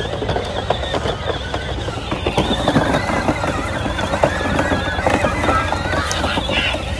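Dry corn stubble crunching and crackling under footsteps and the wheels of battery-powered kids' ride-on toys (Power Wheels), with a steady low rumble underneath.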